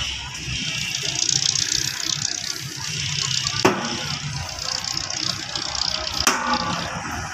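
Steady mechanical noise in a concrete-pipe workshop, with two sharp metal knocks, one about halfway through and one near the end, as steel pipe moulds are handled.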